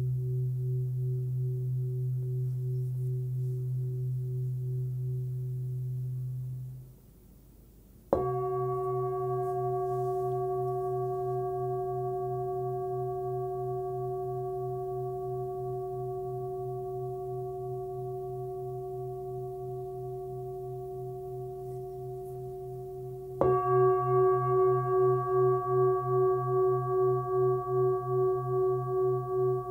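A 26.5 cm forged Full Moon singing bowl with a fundamental around 130 Hz, ringing with a low hum and several higher overtones. The ring stops about seven seconds in; the bowl is struck about a second later and rings on, slowly fading, then is struck again, louder, near the end, its tone pulsing about twice a second.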